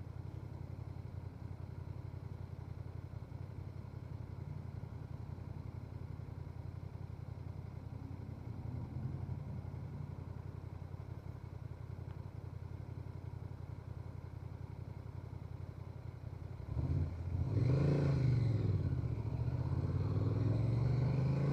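Honda Transalp 750's parallel-twin engine running steadily at low revs, then about 17 seconds in it gets louder as the bike accelerates, its pitch rising and falling twice through the revs.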